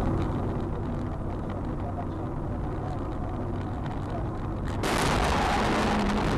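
Steady road and engine noise heard inside a car. About five seconds in it breaks into a sudden crash as the car hits and its windshield cracks. A loud continuous rushing and scraping noise follows.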